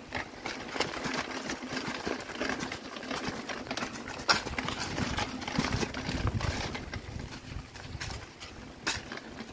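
Mountain bike riding over a stony dirt track: tyres crunching over stones and dry leaves, with irregular clatter and knocks as the bike jolts over the rocks.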